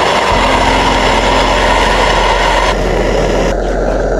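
Camp stove burner running steadily while breakfast cooks, its higher hiss dropping away about three and a half seconds in.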